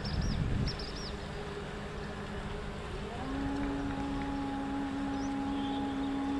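A few short, high bird chirps near the start over a low rumble. About three seconds in, a steady low mechanical hum starts, rising briefly in pitch as it begins, then holding one even tone.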